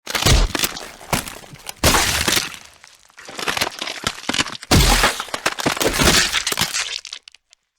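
Gore sound effect: a run of sharp cracking and breaking noises with three heavy impacts, about a third of a second in, near two seconds and near five seconds. It stops abruptly a little before the end.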